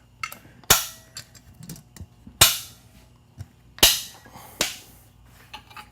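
Lid latches on a waste-oil centrifuge snapping shut one after another: three loud, sharp snaps about a second and a half apart, then a softer fourth, with a few light clicks of handling between them.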